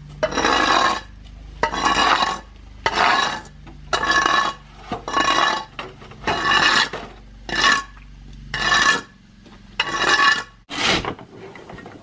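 A long-handled metal scraping tool pushed in repeated strokes across wet, muddy concrete, about ten rasping scrapes roughly one a second.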